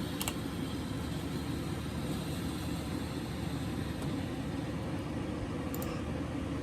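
Steady low rumble of background noise, with a faint click near the start and another near the end.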